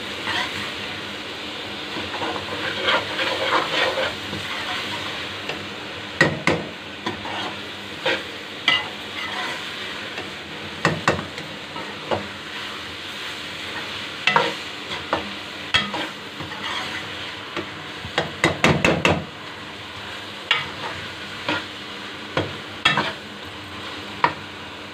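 Metal spatula stirring and scraping chopped ridge gourd in a metal pot, with irregular clinks against the pan over the steady sizzle of the vegetables frying in oil and spices; a quick run of clinks comes about two-thirds of the way through.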